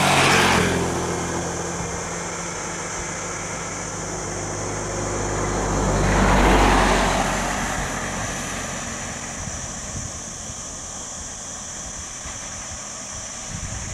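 Two vehicles passing close by on the road, one right at the start and a louder one about six seconds in, each rising and falling away, over the steady idle of a stopped Tata lorry's diesel engine that fades out about five seconds in.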